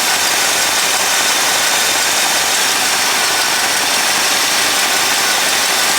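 1964 Pontiac 389 V8 idling steadily on a cold start, heard up close from the engine bay. The owner suspects an exhaust leak at the manifold-to-downpipe flange, where the doughnut gasket may be missing.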